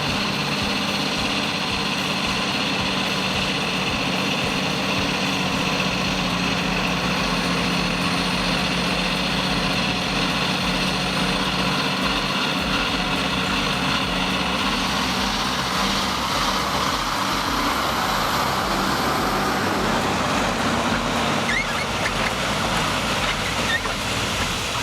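Motor vehicle engine running steadily under load, with a rougher, noisier edge coming in about two-thirds of the way through.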